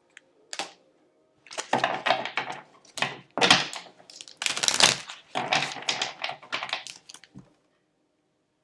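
Tarot cards being handled and shuffled, heard as a series of rapid papery clicking bursts, about six of them, stopping near the end.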